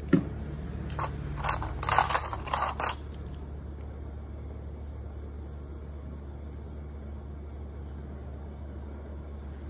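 A thump, then about two seconds of crunchy scraping and clicking from metal nail tools being handled, followed by only a steady low hum.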